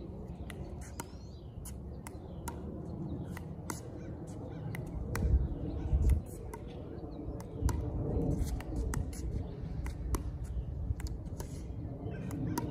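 Pickleball paddles striking a plastic pickleball in a soft dinking and self-tapping drill: sharp, irregular pocks, one or two a second, over a low rumble.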